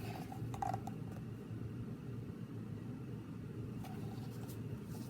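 Steady low room hum with a few faint brief rustles, about half a second in and again near four seconds.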